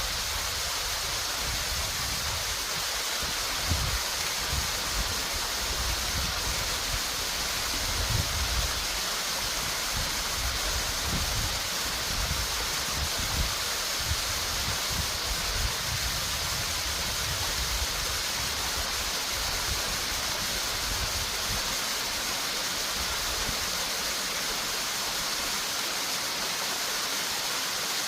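Running water rushing steadily, with irregular low rumbles in the first half.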